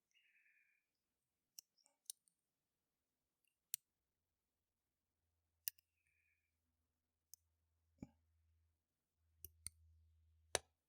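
Lock pick working the pins inside an old Registered US Mail padlock under tension: faint, sharp, scattered clicks, about nine in all, two close together near the end, as the pins are probed toward setting.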